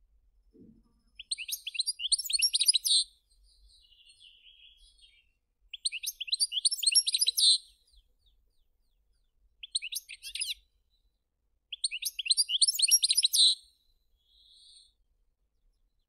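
European goldfinch singing: four bursts of fast, high twittering, each up to about two seconds long, with softer twitters in the gaps between them.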